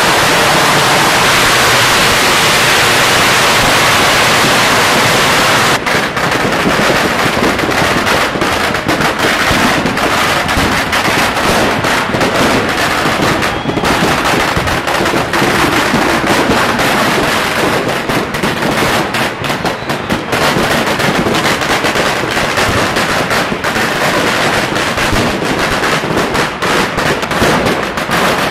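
A long barrage of Chinese New Year firecrackers and fireworks going off. For about the first six seconds the bangs blur into one dense, unbroken crackle. After that, separate sharp cracks and bangs follow in rapid, irregular succession.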